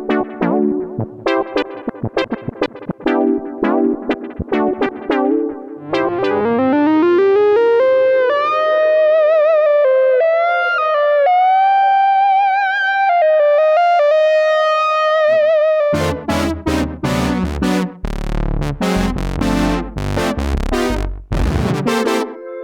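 Moog Muse analog polyphonic synthesizer playing demo patches. First a run of short plucked notes, then about six seconds in a note glides upward into a sustained lead with vibrato, and near the end fast, punchy bass-heavy stabs.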